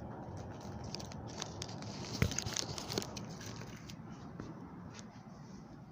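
Light handling noises: a scatter of small clicks and crinkling, like plastic or packaging being moved about. The sharpest click comes a little after two seconds in, and the noises die away after about three and a half seconds.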